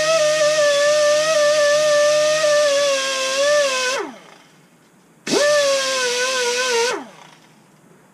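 High-speed die grinder spinning a small sandpaper roll, chamfering and deburring the oil galley openings in a cast engine block. It whines steadily for about four seconds, then is let off and winds down with a falling pitch. About a second later it runs again for a shorter burst and winds down again.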